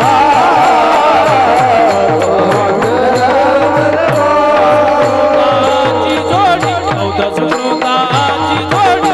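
Marathi devotional bhajan music without words: a wavering, ornamented melody over a quick, steady hand-drum beat, with small hand cymbals (taal) striking along.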